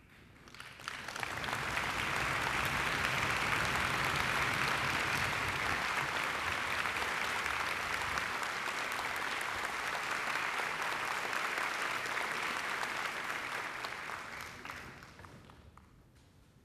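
Audience applauding in a concert hall, swelling up within the first two seconds, holding steady, then dying away near the end.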